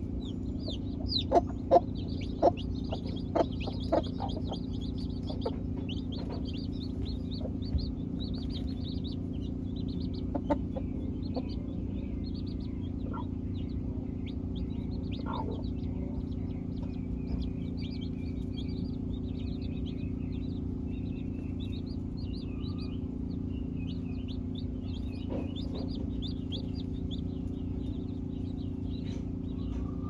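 Baby chicks peeping: many short, high chirps that keep going, over a steady low hum, with a few louder short sounds in the first four seconds.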